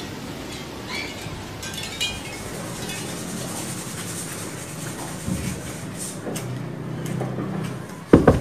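A steady hiss with a few faint clinks, then sharp knocking on a door near the end.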